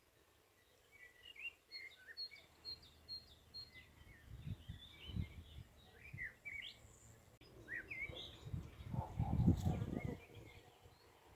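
Small birds chirping in quick, high, repeated calls, with a low rumbling noise swelling twice: briefly around the middle and loudest near the end.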